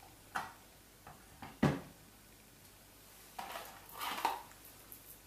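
Metal clicks and knocks of a steel guide bar being fitted onto a chainsaw body, the sharpest knock about a second and a half in, then the jingling rattle of a loose saw chain being picked up near the end.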